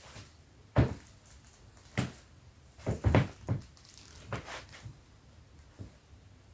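Leather Dr Martens boots rubbed against each other, giving a series of short squeaks, about six in the space of a few seconds, the loudest about a second in and around three seconds in.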